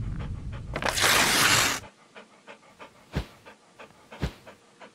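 Dog panting sound effect for an animated cartoon dog: quick repeated panting breaths over a low rumble, cut by a loud rushing whoosh about a second in. After the whoosh the panting goes on much more quietly, with a few soft thumps.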